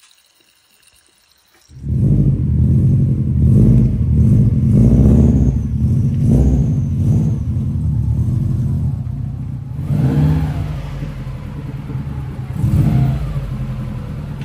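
Subaru EJ20 flat-four engine, whose head gaskets have blown, running and being revved. It comes in about two seconds in and rises and falls several times.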